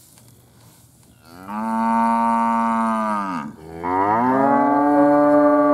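Beef cattle mooing: a long moo beginning about a second in and dropping away at its end, then a second, higher moo that rises and carries on. The farmer reads the calls as the herd wanting range cubes ("cake") rather than the unrolled hay.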